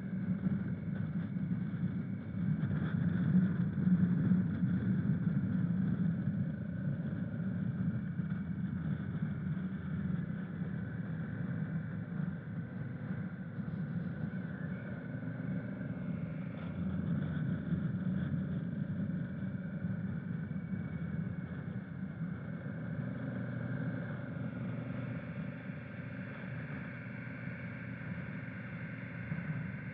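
Honda Africa Twin motorcycle's parallel-twin engine running steadily under way, mixed with a rushing noise at the microphone.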